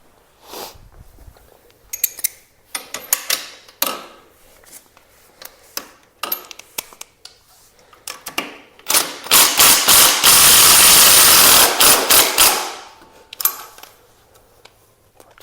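Scattered clicks and clatter of tools and fasteners, then a cordless power driver running in one loud stretch of about three and a half seconds, backing out a motorcycle fairing bolt.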